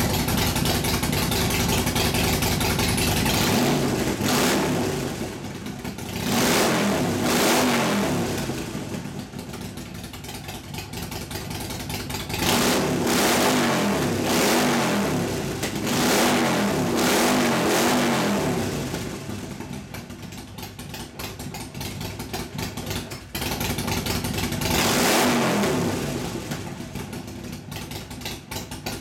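Harley-Davidson Nightster's air-cooled V-twin revved through its exhaust pipes several times, each rev rising and falling back to idle.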